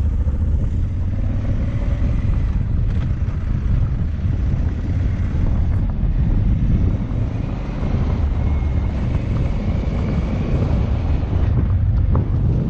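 Adventure motorcycle riding up a gravel track, its engine running steadily at low speed under heavy wind rumble on the helmet-mounted microphone.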